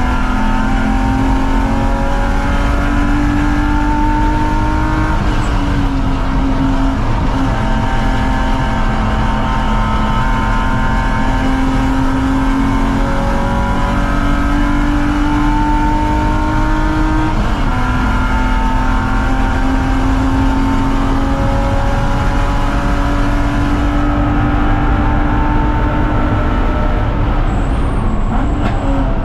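BMW 330Ci's 3.0-litre inline-six engine at race pace under full load. Its note climbs steadily through the revs and drops sharply at gear shifts, about 5 and 17 seconds in and again near the end.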